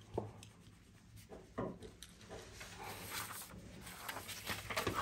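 Soft scratching of a pencil on drawing paper, with loose paper sheets shifting and rustling under the hand. Two short strokes come early, and more continuous scratching follows in the second half.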